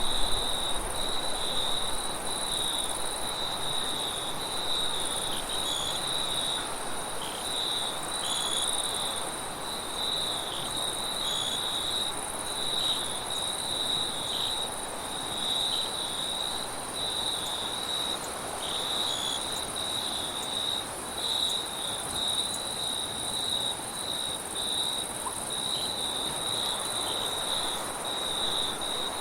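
Crickets chirping continuously in a dense, high-pitched chorus over a steady rush of wind.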